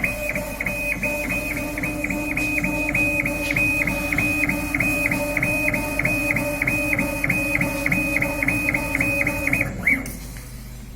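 KAMACH 1390 laser engraver's gantry stepper motors whining in short, even pulses, about four a second, over a steady hum, as the head shuttles back and forth in raster engraving. The motion stops near the end.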